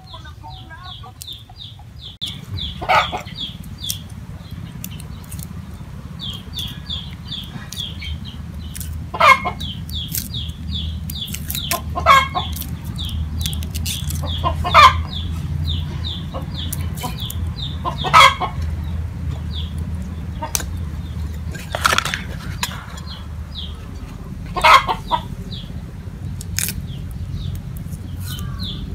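Chickens clucking: a short, sharp cluck every few seconds over runs of quick, high chirps and a low, steady rumble.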